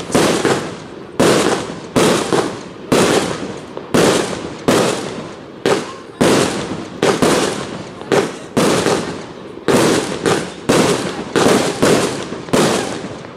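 Consumer fireworks compound cake firing shot after shot, about two a second, each a sharp report with a fading tail. The volley ends near the end.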